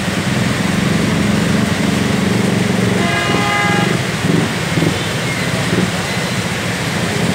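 Road traffic in heavy rain: vehicle engines running under a steady hiss of rain. A horn sounds once, for about a second, about three seconds in.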